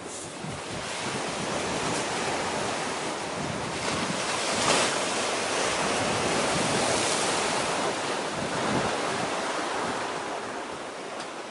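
Sea waves and wind: a steady rushing noise with no engine tone in it, which swells over the first couple of seconds, is loudest about midway, and eases off near the end.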